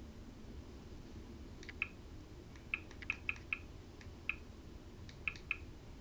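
Apple TV menu navigation clicks: about nine short, soft ticks in uneven groups as the selection is moved across the home screen with the remote, over a faint steady hum.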